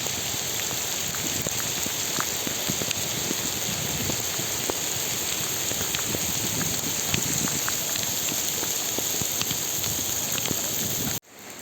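Steady rain with many drops hitting close to the microphone. Near the end it cuts suddenly to a quieter rain.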